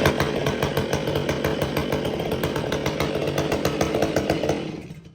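Stihl 500i fuel-injected two-stroke chainsaw running just after starting, with rapid, evenly spaced firing at a steady speed. It dies away near the end.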